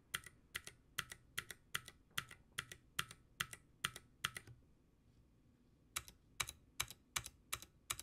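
Keychron Q1 mechanical keyboard with clicky blue switches and its stock ABS keycaps being typed on: separate clacky keystrokes about two to three a second, a pause of about a second and a half past the middle, then slightly quicker typing. With the ABS caps the higher range stands out and the blue switches' clack comes through light.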